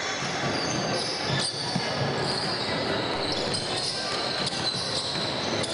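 Basketball bouncing on a hardwood gym floor during play, with a few sharp bounce strokes, over the echoing hubbub of voices in the gym.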